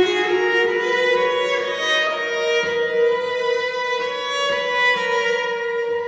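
Amati-model violoncello piccolo playing a slow solo melody: a step up into a long high note, held and bowed.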